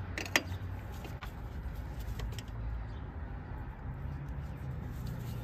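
A few light metallic clicks of a wrench on the power steering pump's pressure line fitting as it is loosened to get at a leaking seal, over a steady low background rumble.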